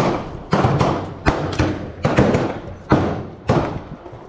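Gunfire on a shooting range: a run of sharp reports, roughly two a second at uneven spacing, each with a short echoing tail, from several shooters firing on the lanes.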